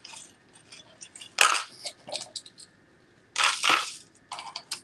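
Handling noise from items on a table: short rustling, crinkling scrapes, the louder ones about a second and a half in and about three and a half seconds in, with a few light clicks near the end.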